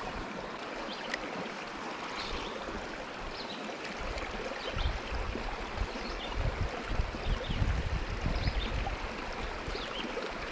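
Steady rush of flowing river water, with irregular low rumbling on the microphone in the middle.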